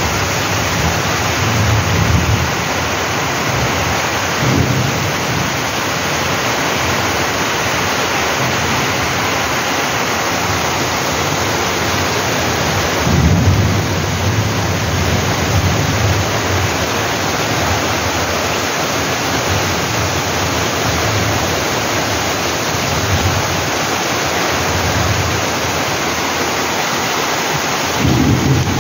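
Heavy rain pouring down, a dense steady hiss on the gravel yard and the corrugated roof overhead, with low rumbles of thunder rolling in several times, the strongest about thirteen seconds in and another near the end.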